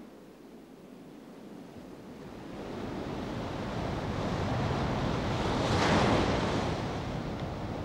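Sea surf breaking on a beach. It grows from about two and a half seconds in, peaks as a wave crashes about six seconds in, then goes on washing.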